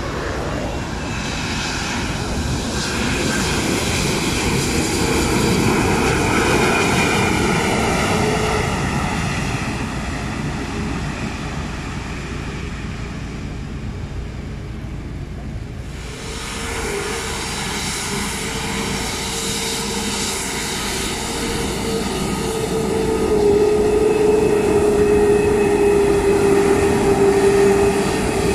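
Turbofan engines of a Viva Air Airbus A320-family airliner whining as it rolls along the runway, with tones slowly shifting in pitch. About halfway through the sound cuts abruptly to another pass, where a strong steady whine grows louder as the jet comes close.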